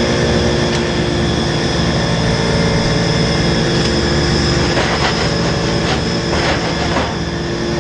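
An engine-driven machine running steadily under load, with a few short rough bursts of noise about five to seven seconds in.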